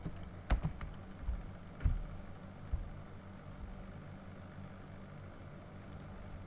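A few computer keyboard keystrokes in the first three seconds, then only a steady low hum.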